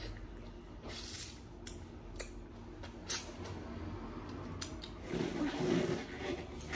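Eating noises: a few short, sharp crunches and crackles spaced a second or so apart, with a brief low murmur about five seconds in.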